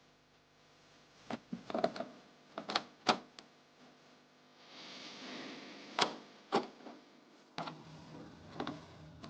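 Hard plastic parts of an air conditioner being handled during filter cleaning: a scattered series of sharp clicks and knocks, about ten in all, with a short rustling hiss about halfway through.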